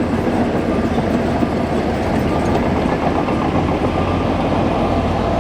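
Bulldozer's diesel engine running steadily, a dense, even mechanical rumble.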